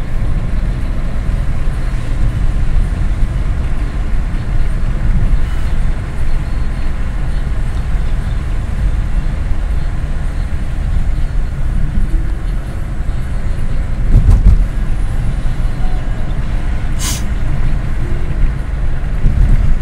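Steady low rumble of a car's engine and tyres on a paved road, heard from inside the cabin while driving, with one louder low thump about three-quarters of the way through.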